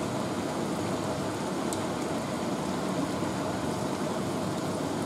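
Thick ghugni, a yellow pea and potato curry, boiling steadily in an open pan as its liquid cooks down near the end of cooking.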